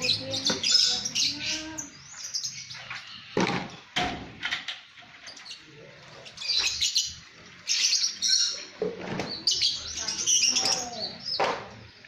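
Lovebirds chattering: bursts of shrill high chirps that come and go, with a few sharp knocks in between.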